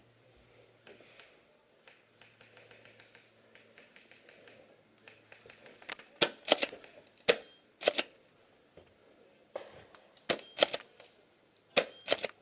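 Airsoft gunfire: sharp snapping cracks in quick clusters of two or three, starting about halfway through and coming again near the end.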